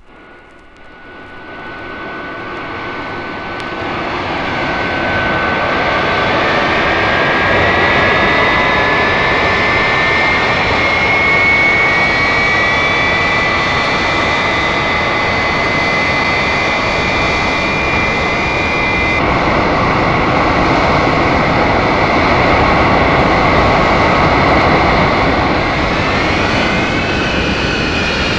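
Engine sound effect played from a sound effects record: a steady roar with a high whine fades in over the first few seconds. The whine rises slowly in pitch and then holds. Near the end a second whine rises and falls.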